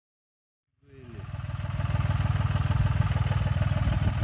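Motorcycle engine running steadily on the move. It fades in about a second in and is at full level from about two seconds.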